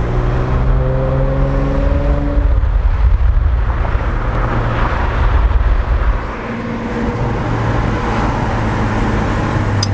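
A 2006 Nissan 350Z's 3.5-litre V6 heard from inside the cabin while driving: the engine note rises as the car pulls through a gear. About six seconds in it drops and settles to a steadier, lower note, with road noise underneath.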